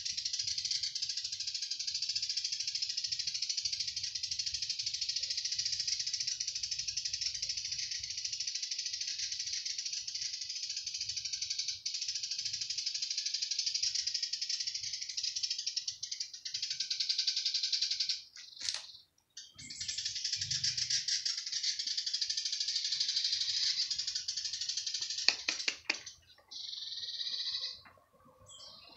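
Steady, high-pitched buzzing of cicadas in the tree, pulsing finely and continuously. It breaks off for a moment about two-thirds of the way through, and a few sharp clicks come near the end.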